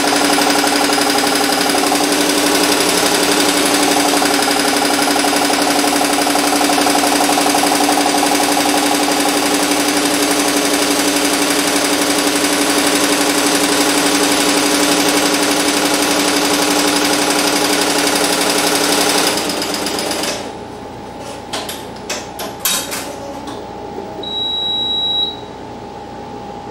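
Barudan multi-needle commercial embroidery machine stitching a design onto a cap, with a fast, steady rattle of the needle bar. About 19 seconds in the stitching stops, followed by a few clicks and a short high beep.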